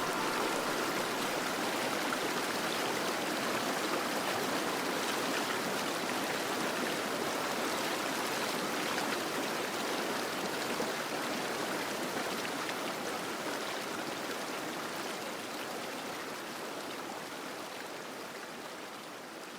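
Fountain water splashing and rushing steadily, gradually fading out over the last several seconds.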